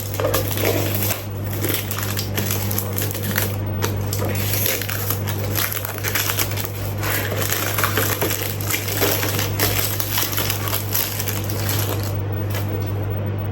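Packaging crinkling and rustling as a perfume box is handled and unwrapped, with many irregular small crackles and clicks, over a steady low hum.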